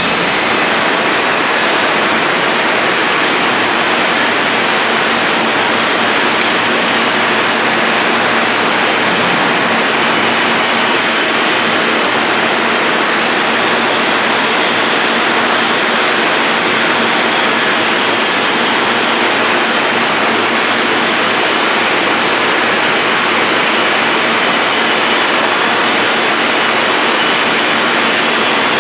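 Steady, loud rushing noise of a steel-coil slitting line running, with no distinct knocks or rhythm.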